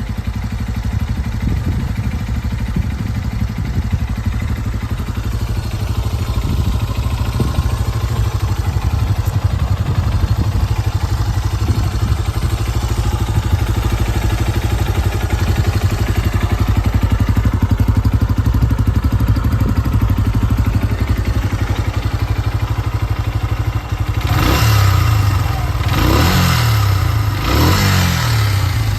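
KYMCO KCR125 motorcycle engine idling steadily, then revved in about four short throttle blips near the end. It runs without abnormal noises, as the seller states.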